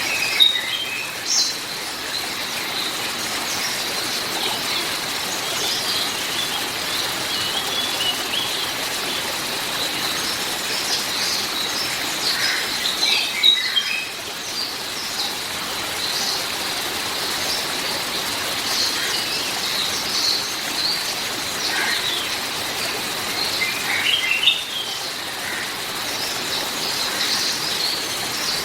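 Songbirds chirping and calling over a steady hiss of rain, with two quick runs of falling chirps, one about halfway through and one a little later.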